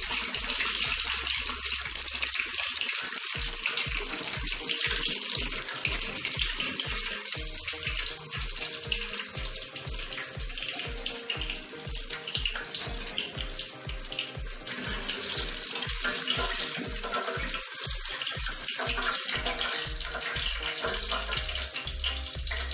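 Floured chicken pieces deep-frying in hot oil: a steady sizzle dotted with fine crackles.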